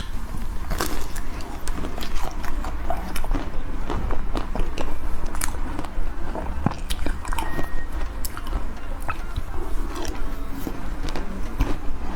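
Close-miked biting and chewing of crunchy chocolate-coated Magnum ice cream, the chocolate shell cracking in many sharp, crisp crunches between softer chewing.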